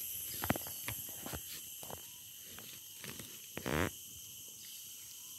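Steady high-pitched drone of forest insects, with scattered small crackles and snaps from a wood campfire. A short buzzing rasp, the loudest sound here, comes a little under four seconds in.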